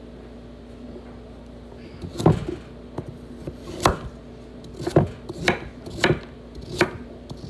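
Chef's knife chopping a carrot on a wooden cutting board: six single knife strikes, starting about two seconds in and coming roughly once a second.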